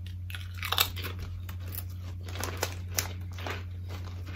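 Potato chip bag crinkling in the hands, a string of irregular crackles, loudest about a second in, over a steady low electrical hum.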